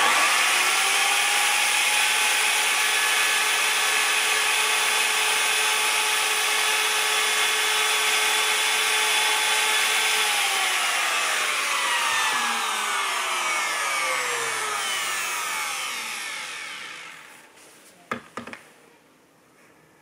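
Trend plunge router whines up to speed at the start and runs steadily as it cuts a finger notch into 18 mm MDF. About halfway through it is switched off, and its whine falls away over several seconds as the motor winds down. A couple of short knocks follow near the end.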